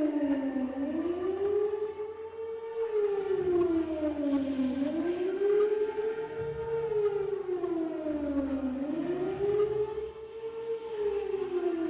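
Civil-defence air-raid siren wailing, its pitch rising and falling slowly about once every four seconds: the wavering signal that warns of an air raid.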